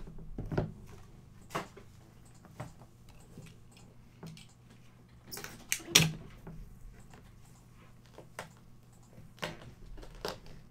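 Cardboard box being opened and handled: the lid is lifted off and the box slid and tapped on the desk, giving scattered knocks and scrapes, with the loudest knock about six seconds in.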